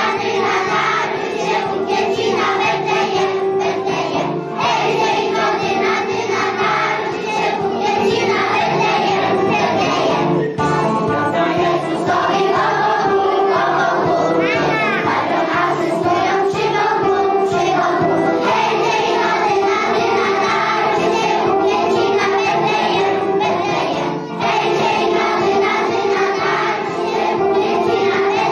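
A group of young children singing together into a microphone, over an instrumental backing with a steady beat.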